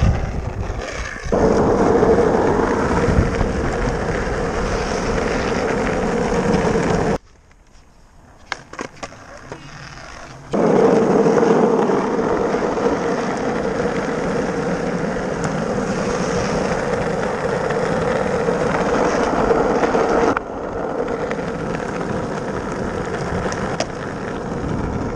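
Skateboard wheels rolling on rough asphalt: a steady gritty rumble with a humming ring. It cuts off abruptly about seven seconds in, leaving a quieter stretch with a few sharp clicks, then starts again abruptly a few seconds later and drops somewhat in level near the end.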